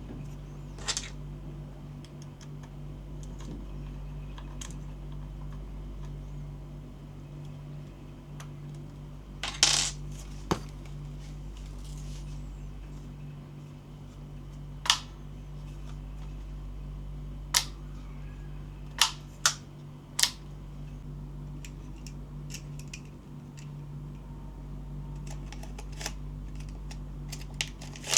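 Scattered sharp clicks and clacks of an SRL gel blaster's hard parts being handled, about ten over the stretch, with the loudest short clatter about ten seconds in and a run of lighter ticks near the end, over a steady low hum.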